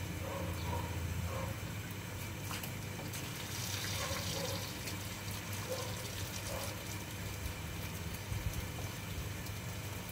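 Water from a garden hose running and splashing as a small dog is rinsed, with a brief stronger hiss of spray about four seconds in.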